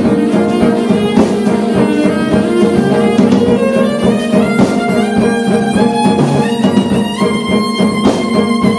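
Live jazz played on bowed cello, electric guitar and drum kit, with a line of notes stepping upward near the end.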